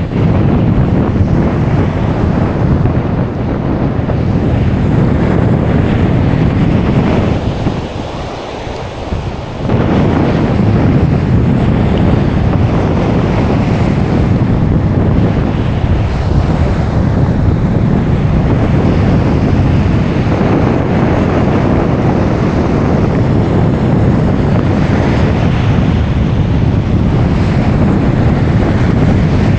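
Wind buffeting the microphone in a loud, steady low rumble over breaking surf, easing briefly about eight seconds in.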